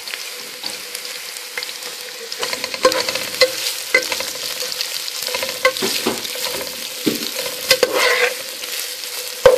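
Sliced onion sizzling in hot oil in a pot as it starts to fry toward translucent. Metal tongs stir it, clicking and knocking against the pot now and then from a few seconds in.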